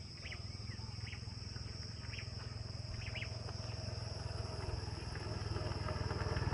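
Small motorcycle approaching, its engine pulsing and growing steadily louder, over a steady high insect drone with a few short high chirps in the first half.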